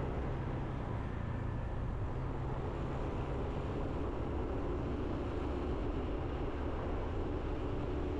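Motorbike engine running steadily while riding, with wind and road noise.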